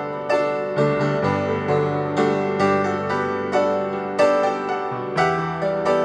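Background piano music, with notes struck at an even pace of about two a second.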